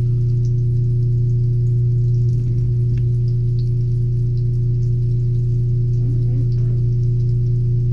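A loud, steady low hum with a few higher overtones, unchanging throughout.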